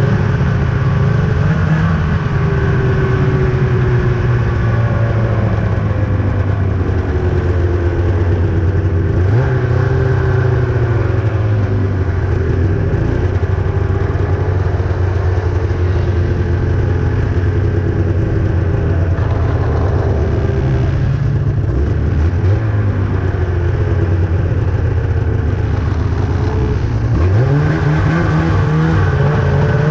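Ski-Doo Summit 800's two-stroke twin engine running under way, its pitch rising and falling with the throttle: up about a third of the way in, a brief dip about two-thirds in, and climbing again near the end.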